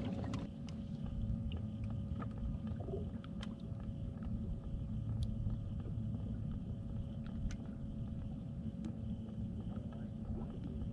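Steady low rumble of a bass boat sitting on the water, with a faint steady hum and a few scattered light clicks.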